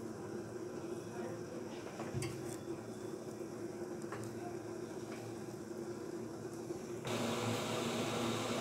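Hands kneading a crumbly dough mixture in a plastic bowl: faint soft squishing and a few light clicks over a steady background hum. Near the end a louder steady hiss takes over.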